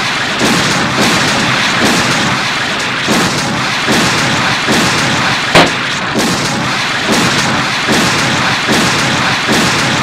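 Cartoon sound effect of a continuous, loud barrage, like heavy rain and thunder, pulsing about twice a second, with one sharp crack about five and a half seconds in.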